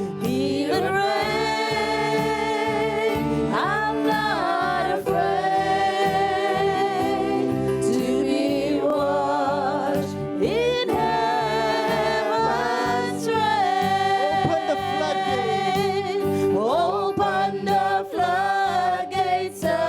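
Gospel worship music: a voice singing long, wavering held notes over steady sustained accompaniment chords.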